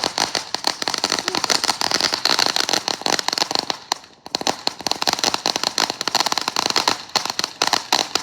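Consumer fireworks going off with dense, rapid crackling pops over a steady hiss, easing briefly about four seconds in and then picking up again.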